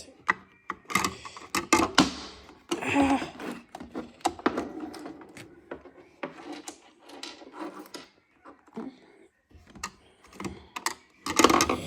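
Irregular clicks, knocks and short rustling bursts of things being handled, with a louder cluster near the end.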